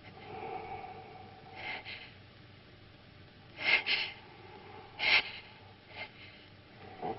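A woman's sharp, frightened gasps and breaths, about five short intakes with two close together in the middle. A faint held tone sounds under the first second or so and comes back at the very end.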